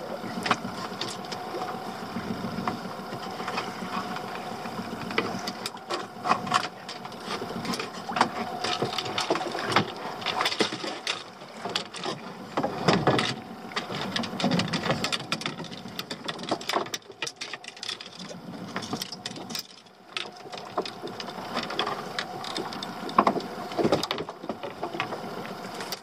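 Irregular clicks and knocks from fishing tackle and gear being handled in a small open boat, over a steady background of water and wind noise.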